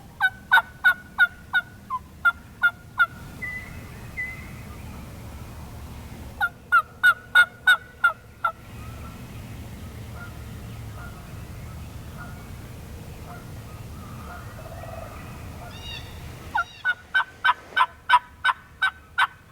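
Wild turkey yelping close by: three runs of loud yelps, about three to four notes a second, each run lasting two to three seconds with long pauses between.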